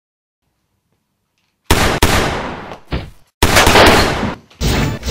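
After almost two seconds of silence, loud banging and crashing begins suddenly and comes in several harsh bursts, each up to about a second long.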